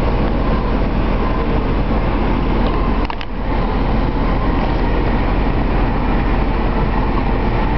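Steady, loud background noise with a low hum underneath, briefly dipping about three seconds in.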